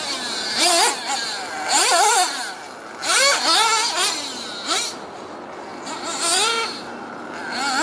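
Alpha Plus nitro engine of an RC buggy revving up and easing off again and again, its high whine rising and falling in pitch every second or so as the throttle is worked.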